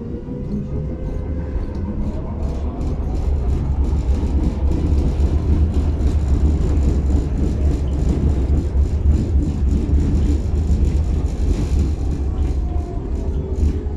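Tatra T6B5 tram running between stops: a steady low rumble of wheels on rails, with a motor whine that rises in pitch over the first few seconds and falls again near the end, and scattered clicks from the track.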